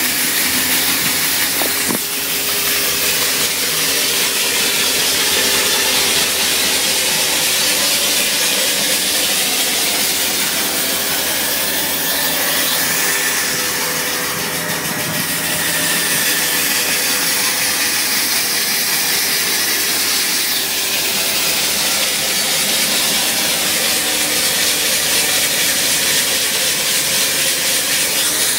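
Excavator-mounted hydraulic diamond rock saw cutting wet through rock, its large water-cooled blade giving a steady, loud, high grinding hiss. A steady hum from the machine runs underneath.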